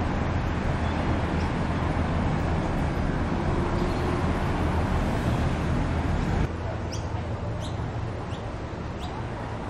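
Steady road-traffic rumble, cut off abruptly about two-thirds of the way through; then a quieter outdoor ambience with several short, rising bird chirps.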